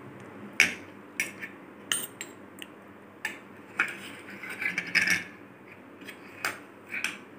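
Metal spoon clinking and scraping against a stainless steel mini idli plate as steamed mini idlis are prised out of the moulds: short, sharp clicks every half second to a second, with a quick run of scrapes about five seconds in.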